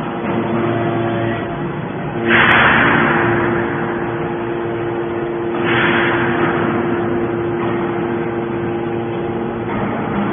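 Horizontal hydraulic metal baler running: a steady machine hum, with two sudden loud surges of noise about two and six seconds in, each fading away over a second or two.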